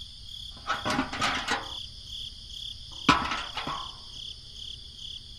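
Clattering and knocking of a small plastic model engine being handled and set down on a toy trailer: one burst about a second in and another, starting with a sharp knock, about three seconds in. Behind it a steady, high-pitched pulsing chirr, like insects, runs throughout.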